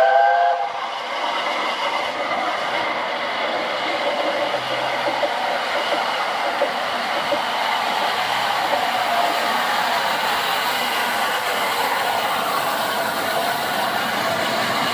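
LNER A4 Pacific steam locomotive 4498 Sir Nigel Gresley running through a station with its train: a steady rush and rumble of wheels on rail that gets a little louder as the engine draws level. A brief loud tone sounds right at the start.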